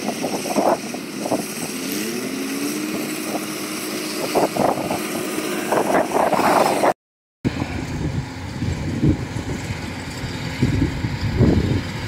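Kubota DC105X combine harvester running while cutting rice, a steady diesel drone with a rise in engine pitch about two seconds in. The sound breaks off briefly about seven seconds in and returns as a lower, rougher drone.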